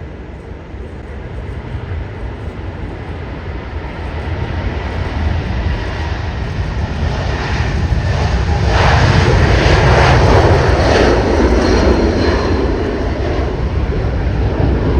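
Boeing 747 freighter's jet engines growing steadily louder as the aircraft comes closer, loudest about nine to eleven seconds in and staying loud.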